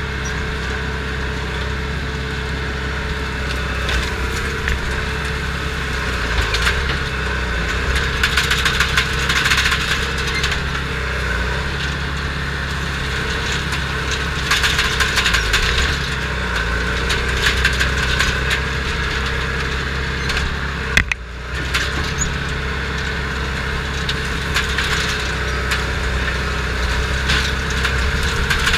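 Crawler bulldozer's diesel engine running steadily under load, heard from inside its cab, with repeated surges of cracking and splintering as brush and wood are crushed ahead of the blade.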